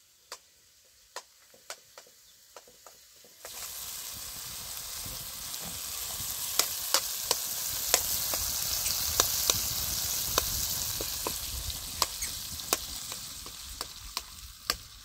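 Chopped tomatoes frying in oil in a metal pan over a wood fire, a spoon stirring them. The sizzling starts suddenly about three and a half seconds in and fades a little near the end, with frequent sharp clicks through it.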